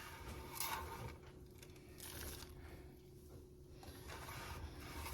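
Faint soft scraping and rustling as pecans are stirred into melted chocolate and butterscotch chips, over a low steady hum.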